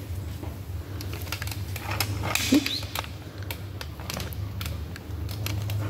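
Scattered light clicks and taps over a steady low hum, with one short squeak about two and a half seconds in.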